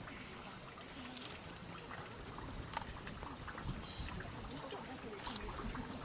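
Water trickling and splashing, with faint voices of people in the background.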